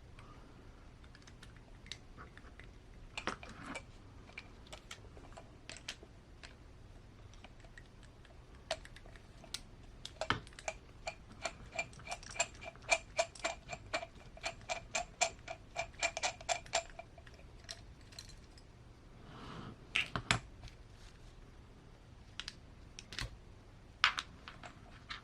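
Small hand tools and metal parts on an RC crawler's chassis and axles, clicking and tapping now and then. About ten seconds in comes a run of quick, lightly ringing clicks, about five a second, lasting some seven seconds, like a ratcheting driver or small metal parts working against each other.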